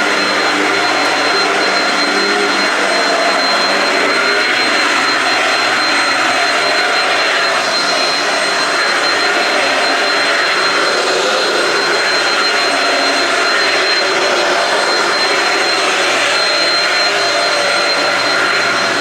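Shark DuoClean upright vacuum running steadily as it is pushed over carpet, with a steady high whine over the motor and airflow noise.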